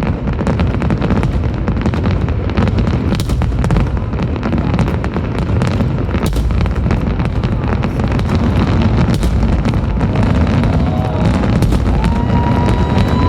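Fireworks display in full barrage: a dense run of bangs and crackles over a constant deep rumble. Near the end a steady high whistle sounds for about a second and a half.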